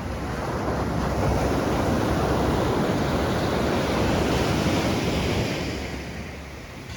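Ocean surf: a wave breaking and washing up the shore, swelling about a second in and fading away near the end.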